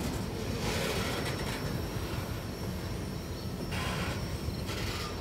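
Freight train of covered hopper cars rolling past: a steady low rumble of wheels on the rails, with brief hissing bursts about a second in and again near the end.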